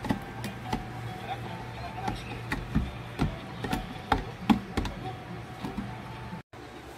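Metal spoon stirring liquid in a plastic measuring jug, clinking and tapping against the jug's sides in irregular clicks over a steady low hum.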